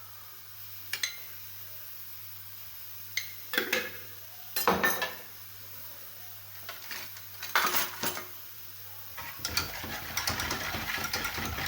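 Metal utensils clinking against dishes and bowls: a few separate clinks, then a denser run of clattering and scraping over the last few seconds.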